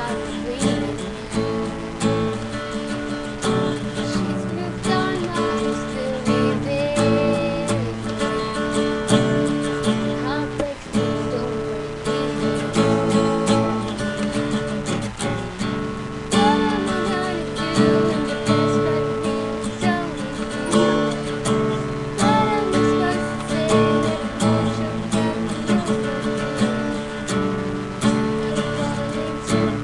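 Acoustic guitar strummed continuously, moving through a chord progression without a break.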